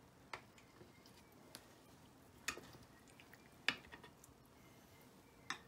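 Serving spoon and spatula knocking lightly against a ceramic baking dish and plates as baked feta rounds are lifted out and served: about five short, isolated clicks, the sharpest about two-thirds of the way through.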